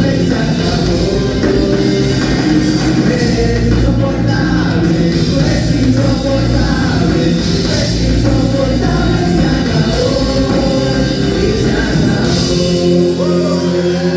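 Live rock band playing loud, with sung vocals over the guitars and drums; near the end the low bass drops away as the song winds down.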